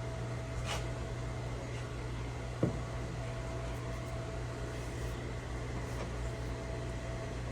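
Steady low mechanical hum, with a single light click about two and a half seconds in.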